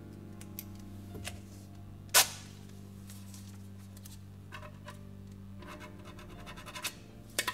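A pen scratching and tapping on paper as a signature is written, with a sharp click about two seconds in and a quick run of short ticks in the last few seconds, over a low steady drone.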